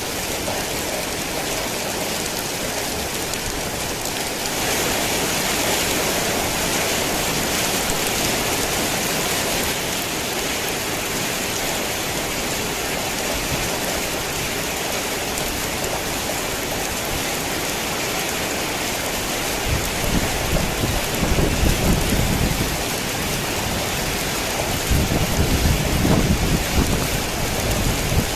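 Heavy rain falling steadily, a little louder about four seconds in, with two low rumbles of thunder in the last third.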